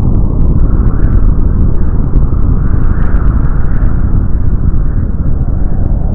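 Nuclear-explosion sound effect in its long aftermath: a loud, continuous low rumble with faint crackling over it.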